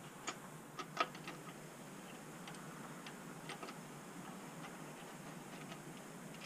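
Light metallic clicks and clinks, irregular, from a connecting rod cap and its bolts being handled on a bare 6.4 Hemi short block; a quick cluster in the first second and a half, the loudest about a second in, then scattered single ticks.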